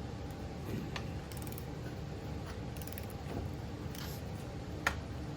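Hand wrench work on axle hardware: sharp metallic clicks about a second in and again near the end, over a steady low background hum.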